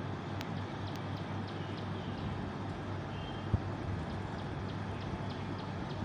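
Steady outdoor background noise with a low hum, with a few faint high ticks and a brief faint chirp about three seconds in, and one soft bump in the middle.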